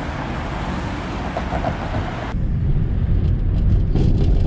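Street traffic noise, cars passing on a busy road. A little over two seconds in it cuts to a louder, deeper rumble of a moving vehicle heard from inside it.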